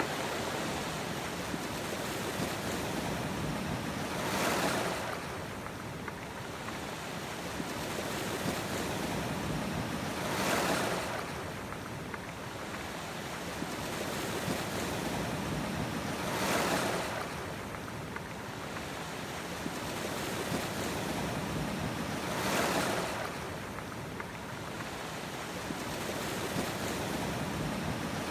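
Sea waves breaking on a shore over a steady rush of surf, with four louder surges about six seconds apart.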